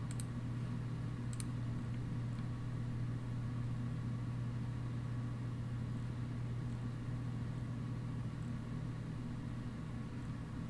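Steady low mechanical hum of room background noise, with two faint clicks in the first second and a half.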